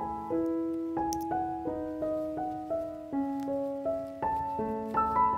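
Background piano music: a melody of evenly paced notes, about three a second, over sustained lower notes.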